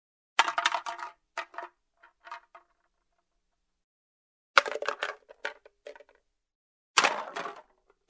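Drink can being opened: sharp metallic clicks and cracks from the pull tab with a short ringing of the can, in three main groups, about half a second in, near the middle and near the end, with lighter clicks between.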